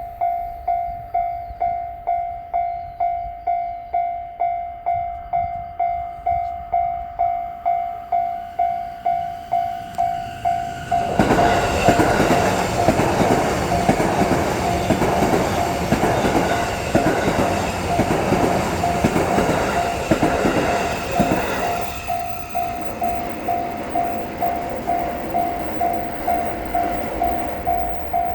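Japanese level-crossing warning bell ringing in a steady pulse of about two strokes a second. About eleven seconds in, a train passes over the crossing for some ten seconds, louder than the bell, before the bell is heard alone again.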